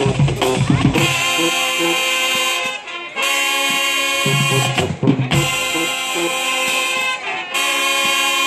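Band brass section playing long held chords, each lasting one to two seconds with short breaks between, after a few drum hits at the start.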